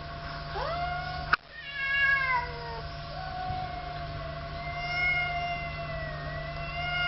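Cats caterwauling in a standoff: long drawn-out yowls that rise and fall in pitch, one wail held for several seconds near the end. A single sharp click about a second and a half in.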